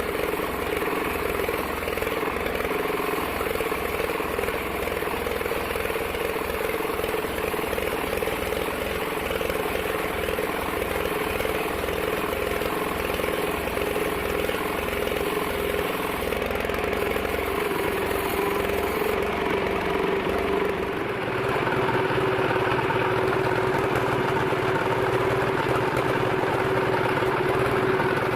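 Large 42-inch sawmill bandsaw running steadily with a constant hum. About twenty seconds in, the sound gets louder and fuller.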